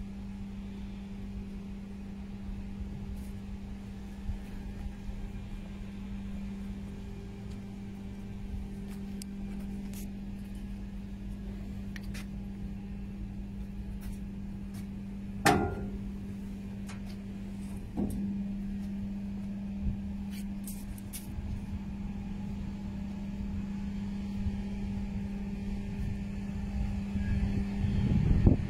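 A steady mechanical hum at one pitch over a low rumble, with a sharp knock about halfway through and a lighter one a couple of seconds later.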